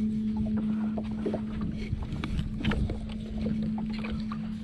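A boat's motor running at a steady, even hum that stops near the end, with a few light knocks around it.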